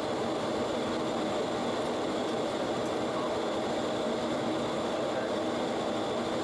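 Steady flight-deck noise inside a Boeing 737 on final approach: a constant rush of airflow and engine noise.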